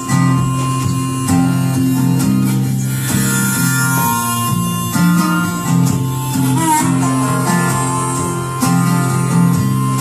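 Live acoustic band playing an instrumental passage: strummed acoustic guitar and picked electric guitar over upright bass notes, with no singing. The band comes in loud right at the start.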